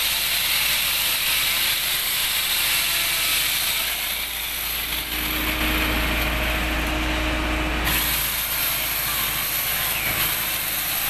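Chainsaw running at high speed, cutting through the limb of a fallen tree.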